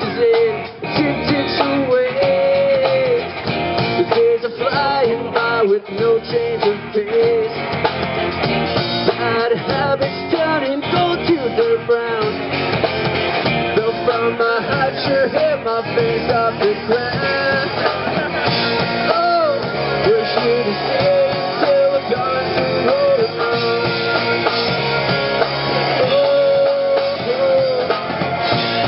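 Live amplified rock band playing: two electric guitars, electric bass and drum kit, with a pitch-bending melody line over a steady beat.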